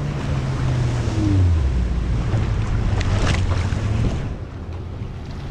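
Jet ski engine passing close and pulling away, its pitch dropping over the first couple of seconds, over wind on the microphone and sea wash. The sound eases off after about four seconds.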